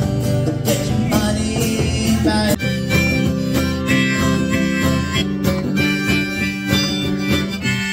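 Live acoustic music: acoustic guitar with a djembe hand drum, then, about two and a half seconds in, a change to strummed acoustic guitar with a harmonica playing long held notes over it.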